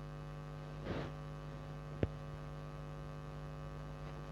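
Steady electrical mains hum picked up by the recording, with a short soft sound about a second in and a single faint click about two seconds in.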